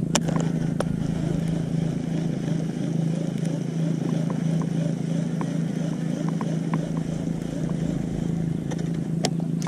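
A motor humming steadily at a low, even pitch, with a few faint clicks over it.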